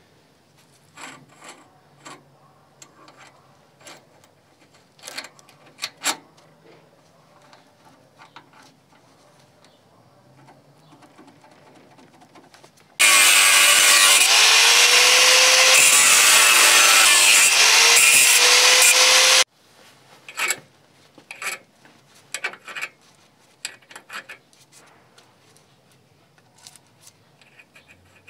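Angle grinder with a cutting disc cutting steel, starting about halfway through and stopping abruptly after about six seconds. Its pitch dips and rises back twice as the disc bites. Before and after it come scattered light metallic clicks and knocks from steel jig parts being handled and fitted.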